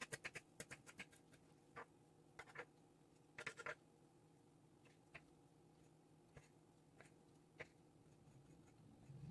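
Kitchen knife chopping fresh parsley on a wooden cutting board: rapid, even taps, about six a second, that stop about a second in. After that come a few faint, scattered knocks and taps.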